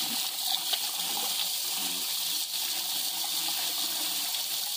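Running water, a steady rush with no break.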